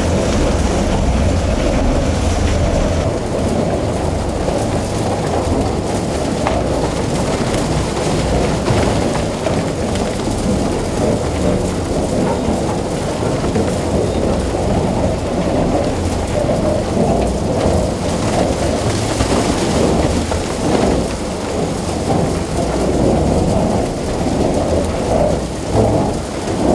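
Herrenknecht tunnel boring machine breaking through: a steady, loud rumbling and grinding of the cutterhead against crumbling rock, with the hiss of water hoses spraying the cutterhead to keep the dust down.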